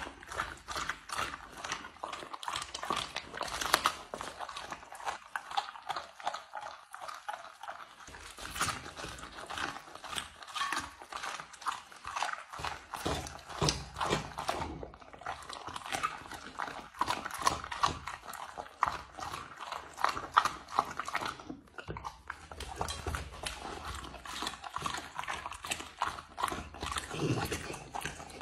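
Rottweiler eating raw meat from a plate: close, wet chewing, lip-smacking and licking in a dense, irregular run of clicks and smacks, with a couple of brief pauses.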